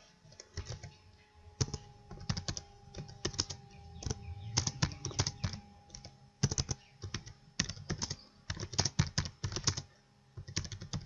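Typing on a computer keyboard: keystrokes in quick, irregular runs.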